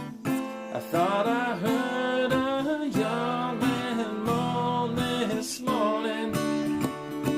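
Acoustic guitar strummed steadily, with a voice singing a long, bending melodic line from about a second in until about six seconds in.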